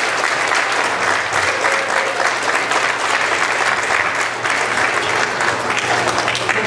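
An audience applauding: many people clapping steadily and densely.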